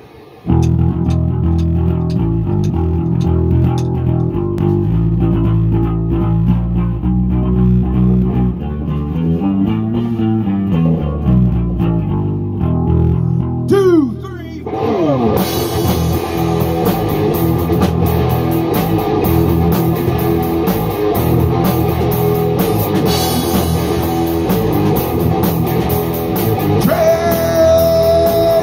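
Live rock band playing: electric guitar and bass guitar over a drum kit. For the first half the sound is heavy and low. About halfway through there is a brief dip with a falling pitch slide, then the full band comes in brighter, with cymbals.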